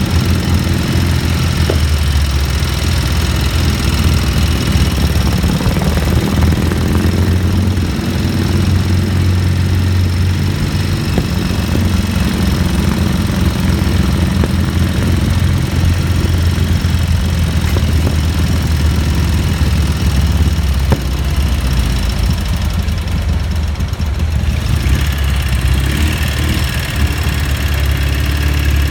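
Sidecar motorcycle engine running steadily under way, a low, even drone, with tyres hissing on a wet road.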